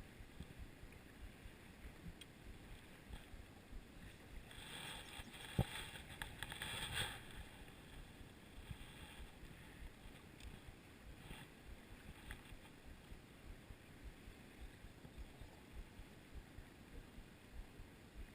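Faint, uneven low rumble of wind buffeting the microphone. About five seconds in there is a short stretch of hissing noise with one sharp knock in the middle of it.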